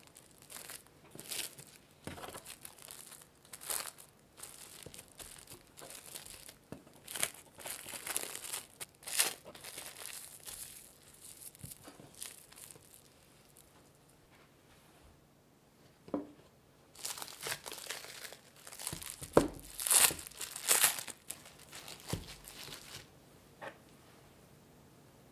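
Plastic cling film crinkling and rustling in irregular bursts as hands wrap and fold it tightly around a lump of pie dough. A short lull comes a little past the middle, then the loudest crinkles before it settles near the end.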